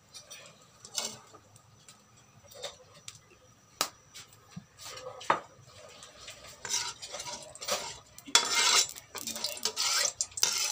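Cooking oil poured into a heated wok, with scattered light clinks and knocks of the bottle and a metal spoon against the wok. In the second half come short scraping passes as the spoon works around the pan.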